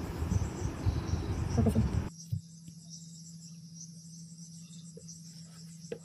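Insects chirping steadily in the background over a low steady hum. A louder hiss fills the first two seconds and cuts off abruptly.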